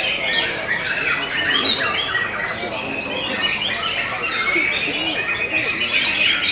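Several caged white-rumped shamas singing at once: dense, overlapping fast phrases of whistles and chattering notes.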